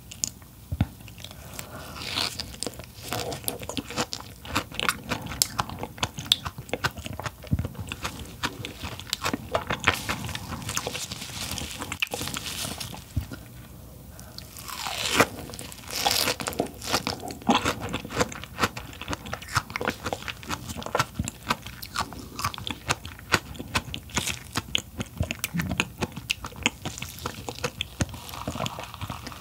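Close-miked eating of king crab: chewing with repeated crunches and many sharp clicks throughout, and a louder sweep about halfway through.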